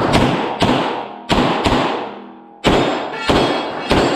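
Pistol shots fired in quick succession during a timed course of fire, about eight in all, irregularly spaced with some close pairs and a pause of about a second near the middle. Each shot rings out with a long echoing decay.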